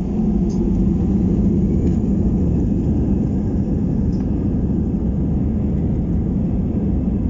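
Airbus A319 jet cabin noise: a steady, loud, low rumble of the engines and airflow heard from inside the cabin.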